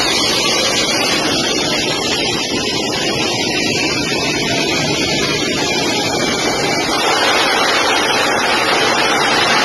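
Jet aircraft engines and rushing air heard from inside the aircraft: a steady, loud, even roar of noise.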